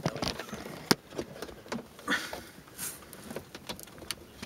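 Scattered sharp clicks and knocks, with a couple of brief scrapes, from a tool being worked in behind a BMW E46's plastic B-pillar trim panel to pry it away from the body.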